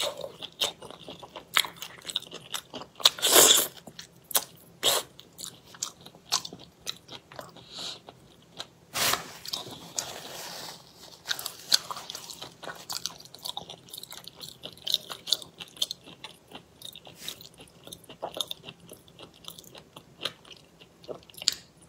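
A person chewing and biting spicy marinated shrimp close to a clip-on microphone: irregular crunches and wet mouth clicks, louder for a moment about three seconds in.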